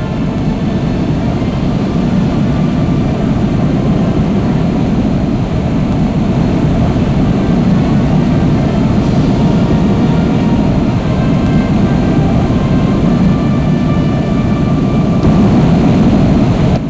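Steady, loud jet aircraft engine noise, a deep even rumble that holds through without a break.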